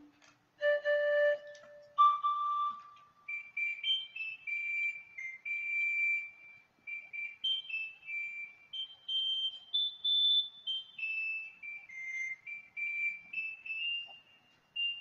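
Akai EWI 5000 electronic wind instrument played on its panpipes voice: two held lower notes, then a quick, wandering melody of high notes, with a breathy tone the player calls "extra spit".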